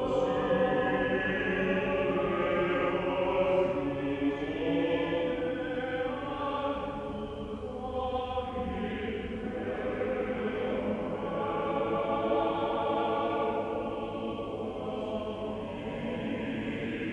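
A choir singing slow, sustained chords, with the notes held for several seconds before the harmony shifts.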